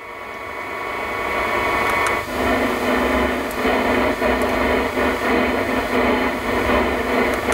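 Medium-wave AM static from a stock Audi MMI Basic car radio: a steady hiss with a few steady whistle tones, with no clear station coming through. It fades up from silence at the start, and about two seconds in the noise changes as the radio steps from 522 kHz to the next channel, 531 kHz.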